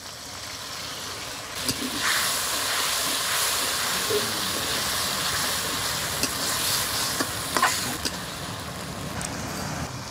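Spice paste sizzling in hot oil in a kadai as a splash of water is poured in. The hiss swells about two seconds in and eases off near the end. A metal spatula scrapes and taps the pan as it is stirred.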